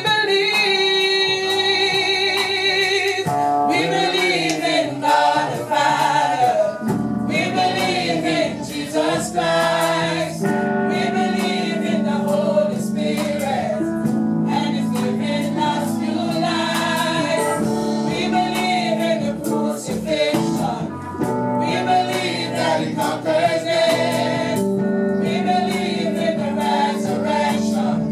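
Gospel worship music with group singing over steady instrumental accompaniment.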